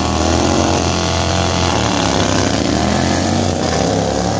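Two racing lawn tractors launching off the start line side by side and accelerating away down the track, their engines running hard and steady.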